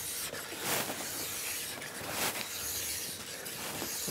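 Extra-coarse 100-grit sharpening stone, held in a side-edge file guide, rubbed back and forth with pressure along a ski's steel side edge, in repeated strokes. The edge is being softened, with case hardening and burrs ground off.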